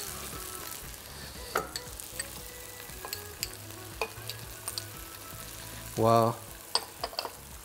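Butter melting into lemon juice in a small pan over low heat, sizzling while a whisk stirs it constantly, with scattered light clicks of the whisk against the pan. A short voice sound about six seconds in.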